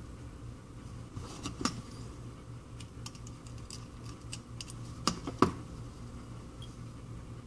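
Light clicks and ticks of small tools and tiny metal and plastic phone parts being handled, with two louder clicks about five seconds in, over a steady low hum.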